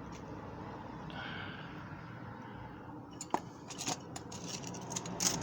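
Sharp metallic clicks and clacks from a removed clutch disc being worked by hand. They start about three seconds in and come faster toward the end. The disc's hub rattles loose in its plate because its damper springs are missing.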